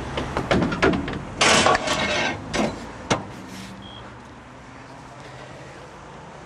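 Equipment being taken from a compartment on the side of a sewer-cleaning vacuum truck: a run of sharp knocks and clatter over the first three seconds, with a short scraping rush of noise in the middle. After that only a low steady hum remains.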